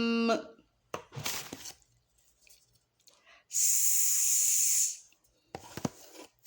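A woman's voice modelling letter sounds. A hummed "mmm" ends just after the start, a long hissing "sss" begins about three and a half seconds in and lasts about a second and a half, and near the end come a couple of short puffed "p" sounds.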